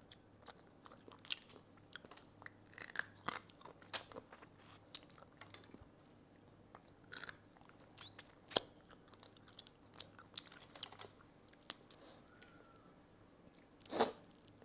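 Steamed mud crab legs being cracked and chewed, with meat sucked from the shell: irregular sharp cracks and crunches, the sharpest about eight seconds in, and a longer noisy burst near the end.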